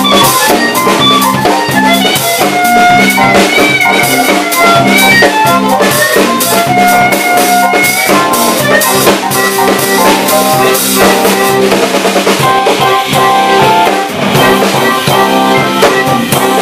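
Live blues band playing: a harmonica lead with long held, bending notes over electric guitar and a steady drum kit beat.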